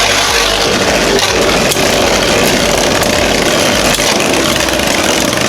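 Two Beyblade spinning tops, a 3D-printed Jynx Ouroboros and a Union Spriggan with metal blades, spinning and grinding against each other in a plastic stadium: a loud, steady whirring scrape broken by a few sharp clicks as they collide.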